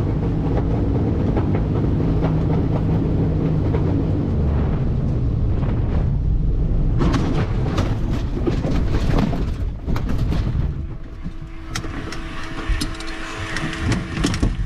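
Loud low rumble of aircraft engine noise, with a few knocks around the middle. About eleven seconds in it changes to a steadier drone with a held hum.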